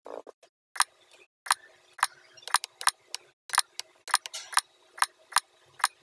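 Computer keyboard and mouse clicking while a form is filled in: sharp separate clicks about twice a second, with fainter key taps between.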